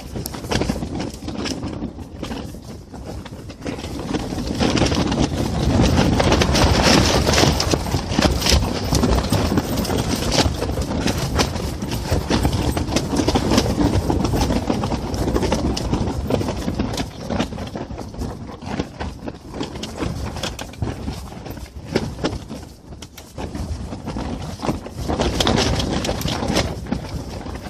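Strong, gusty wind buffeting the fabric walls of a portable ice-fishing shelter, with irregular flapping and knocking over a heavy rumble of wind on a cell phone's microphone. The gusts swell about five seconds in, ease off in the second half and build again near the end.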